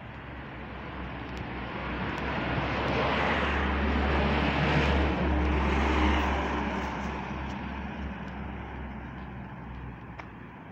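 A car driving past in the street, its engine and tyre noise swelling to a peak about halfway through and then fading away.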